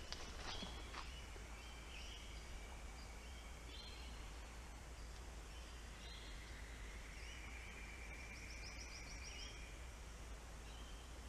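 Rainforest ambience: scattered short bird calls and a trill over a steady hiss. A few faint sharp knocks come in the first second.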